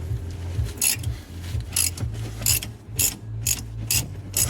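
Ratchet wrench clicking in short, irregular strokes, about one sharp click every half second to second, as a front hub mounting bolt is wound out.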